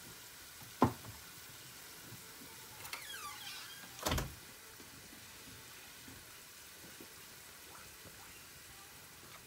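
Quiet kitchen handling noises over a faint steady hiss: a sharp click about a second in, a brief faint high squeak around three seconds, and a knock just after four seconds.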